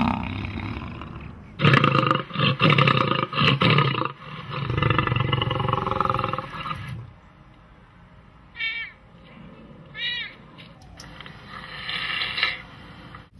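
Lion roaring and snarling in a series of loud bursts, then a longer growl that ends about seven seconds in. Later come two short, high cat calls and a breathy hiss from a serval.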